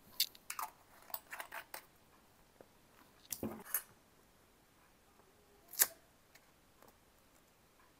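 Quiet handling clicks and rustles of a small plastic bottle being set down and capped and a paper sticker label being handled, with a cluster of light clicks early on and one sharper click about six seconds in.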